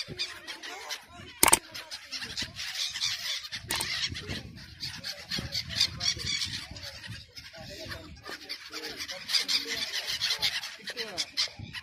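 A flock of seabirds calling over one another, a dense chorus of short squawks and honks. A sharp knock sounds about a second and a half in.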